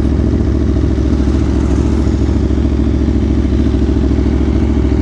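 Aprilia Tuono Factory's V4 engine running steadily through its Leo Vince exhaust, with an even low rumble and no revving.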